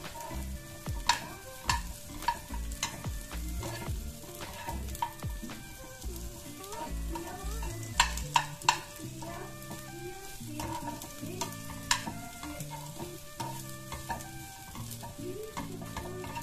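Food frying in a pan with a steady sizzle, while a spoon stirs it and now and then knocks sharply against the pan. Soft instrumental background music plays underneath.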